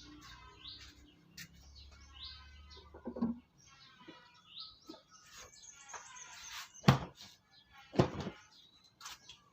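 Small birds chirping and twittering in quick, repeated calls, with short rising whistles. A few sharp knocks cut through, the two loudest about seven and eight seconds in.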